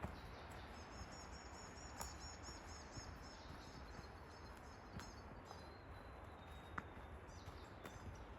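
A forest bird singing a quick series of repeated high notes, about three a second, that stops about two-thirds of the way through, over a steady hiss of forest ambience. A few sharp clicks of footsteps on the track.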